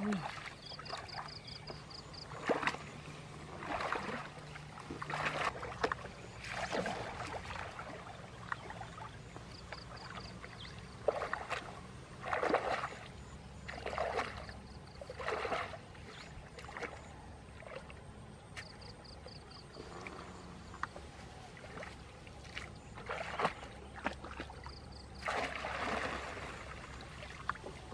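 Water splashing and sloshing as a person wades through shallow water and sweeps a woven bamboo basket through it, water pouring back out of the basket; irregular splashes come every second or two.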